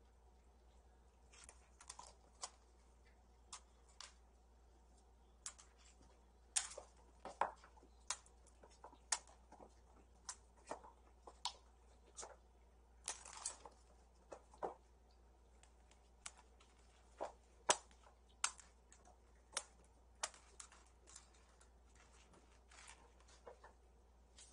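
Scattered light taps, clicks and short scrapes of kittens playing and running about, paws and claws on the floor, coming irregularly about once or twice a second.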